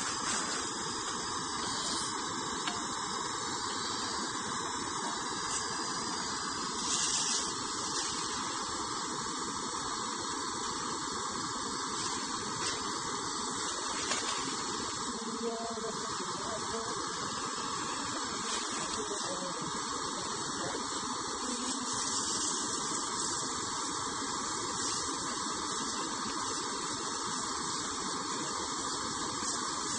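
Portable gas stove burner running under an aluminium pot with a steady hiss.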